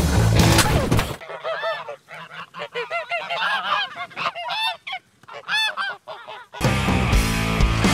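Music cuts out about a second in, and a flock of geese honks for about five seconds, many short calls overlapping, each rising and falling in pitch; the music comes back near the end.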